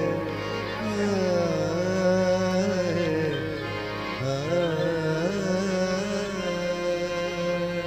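Qawwali singing: one voice holding long notes that glide and waver in ornaments, over a steady drone.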